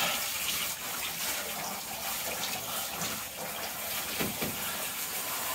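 Handheld shower head running in a bathtub, water spraying steadily onto a dog's coat and splashing into shallow soapy bathwater as the dog is rinsed.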